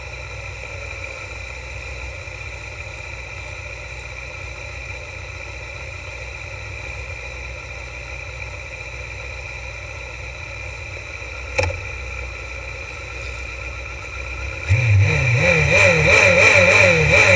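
Suzuki GSX-R750 racing motorcycle's inline-four engine idling steadily on the start grid, with a single sharp knock about two-thirds of the way through. Near the end the engine is revved up and held high with the throttle wavering, as the rider builds revs for the race start.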